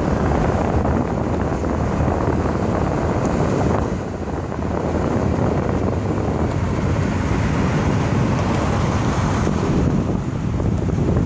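Wind blowing on the microphone over the steady rumble of highway traffic.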